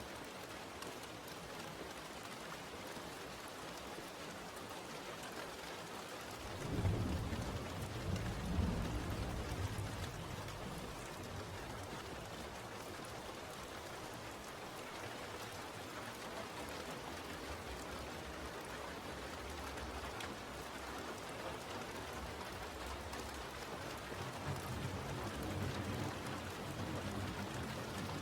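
Steady rain falling, with a roll of thunder rumbling low about seven seconds in and fading over a few seconds, and a fainter rumble near the end.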